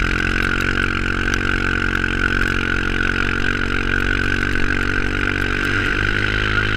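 Engine of a towing vehicle running at a steady speed, with a steady high whine over it; the pitch wavers slightly near the end.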